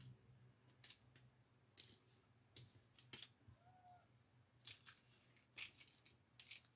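Faint soft ticks and scrapes of thick cardboard die-cut pieces being slid and set down on a tabletop: about eight light, scattered taps, over a low steady hum.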